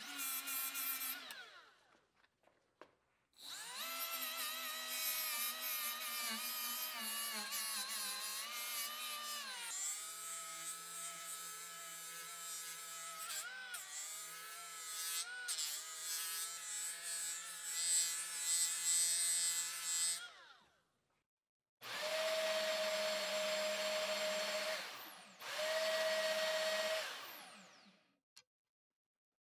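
Cordless die grinder with a small sanding drum running at high speed on micarta handle scales, its whine dipping and wavering in pitch as it bears on the work, in several runs that stop suddenly. Near the end, a steadier, lower machine whine comes in two short stretches, likely a bandsaw running.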